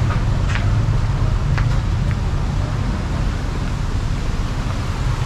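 Roadside traffic: a steady low rumble of vehicle engines, with a few brief sharp ticks in the first two seconds.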